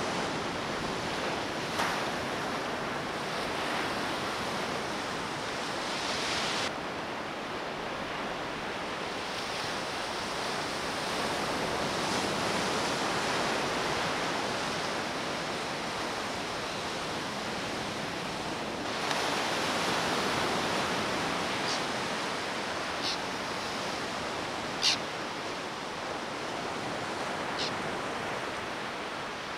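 Ocean surf washing onto a beach, a steady rush that grows and eases, with a few short ticks in the last third, the sharpest about 25 seconds in.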